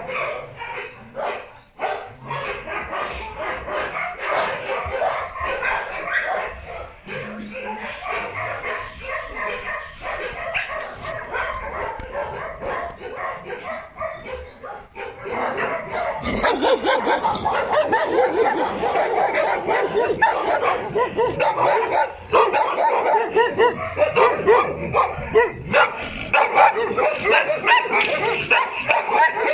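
Many kennelled shelter dogs barking together in a continuous, overlapping chorus, growing louder about halfway through.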